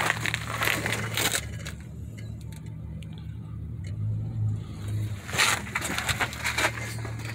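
Scraping and rustling as someone shifts about on the pavement under a vehicle and handles the camera, in bursts in the first second and a half and again about five seconds in. A steady low hum runs underneath.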